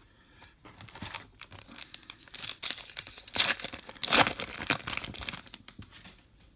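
Trading card pack wrapper being torn open and crinkled by hand: a run of irregular rustles and tearing sounds, loudest a little past the middle.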